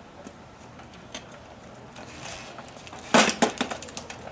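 Walk-behind rotary lawnmower being turned back over onto its wheels: a loud clatter about three seconds in as the deck and wheels land on block paving, followed by a few short rattles.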